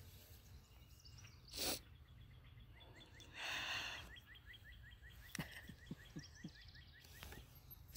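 Two short breathy exhales or sniffs, with faint, quick chirps repeating about three times a second in the background.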